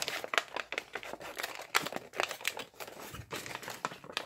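Origami paper crinkling and rustling as a sheet pleated into many creases is gathered and pressed along its folds, in a quick, uneven run of small crackles.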